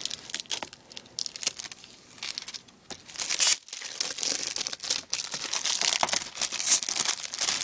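Plastic shrink wrap being torn and crinkled off a new DVD box, in irregular fits of crackling that grow louder and busier about three seconds in.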